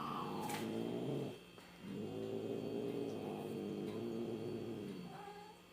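Cat making long, low, drawn-out growling calls: one lasting about a second, then after a short pause a longer one of about three and a half seconds.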